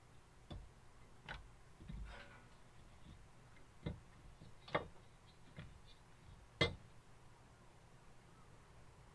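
Light clicks and taps from tools and parts being handled on a workbench, about seven at uneven intervals, the sharpest about two-thirds of the way through.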